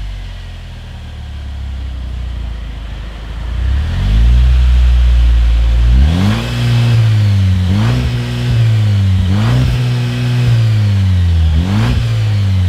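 Jeep Wrangler JL engine heard through its dual exhaust tips, idling low, then revved about four seconds in and blipped four times, each rev rising quickly and falling back.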